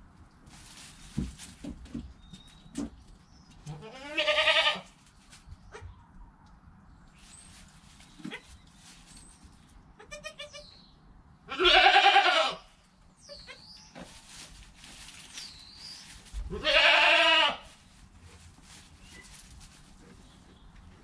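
Goats bleating: three loud, wavering bleats, each about a second long, with faint rustling and light knocks in between.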